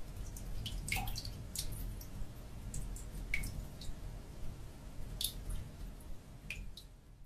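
Water dripping: a dozen or so irregular single drops plinking over a low steady rumble.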